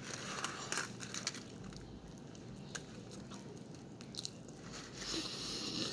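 A person biting into a mouthful of Chipotle food with guacamole and chewing it, with several short clicks and wet mouth sounds in the first second or so, then quieter chewing.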